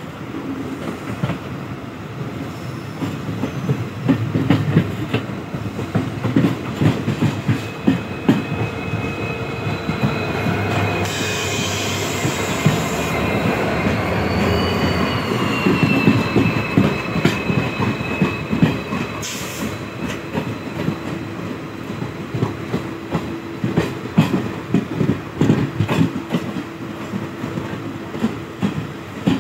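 Container freight train passing close by on the next track, its wheels clattering steadily over the rail joints. A high metallic wheel squeal rises and falls in the middle as the locomotive and the first wagons go by.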